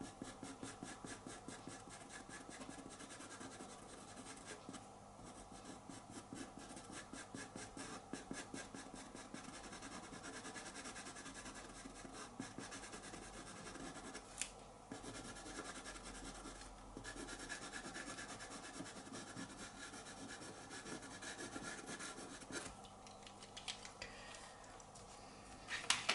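Pastel pencil scratching across textured pastel paper in quick, short, repeated strokes, drawing fur. The strokes pause briefly twice and thin out near the end.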